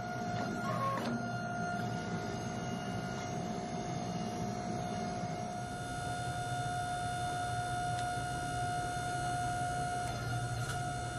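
Hydraulic forging press's pump motor running with a steady whine over a low hum, with a few short clicks in the first second.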